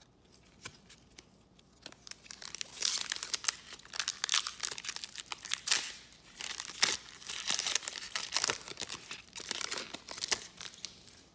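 Foil wrapper of a Goodwin Champions trading-card pack being torn open and crinkled by hand. A few light ticks, then a dense run of sharp crackles from about two seconds in.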